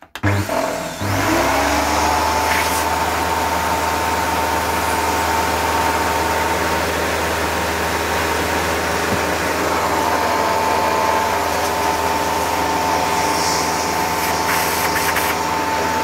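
Dirt Devil Platinum 1000 bagged upright vacuum cleaner switched on: its motor spins up over about a second, then runs steadily with a constant whine over a hum while drawing air through the hose.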